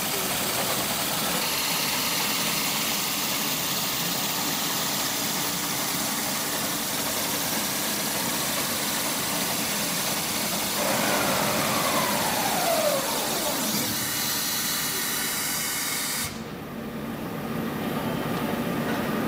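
Scharmann HeavyCut 3.3 CNC horizontal boring mill running with a steady mechanical whir and hiss. Past the middle, a whine falls in pitch. Near the end the high hiss cuts off suddenly, and the noise then builds back up.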